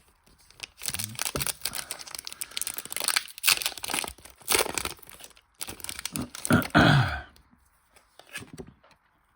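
Foil wrapper of a Pokémon trading-card booster pack being torn open and crinkled, with the crackling running for several seconds. A brief lower sound near the end is the loudest moment.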